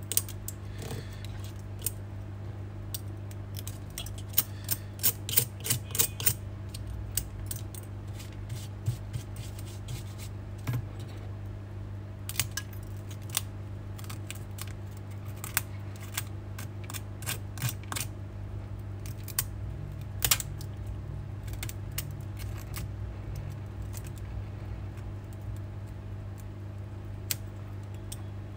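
Sharp clicks and scrapes of a metal blade prying and chipping shattered back glass off an iPhone X frame, thick in the first several seconds and more scattered later, over a steady low hum.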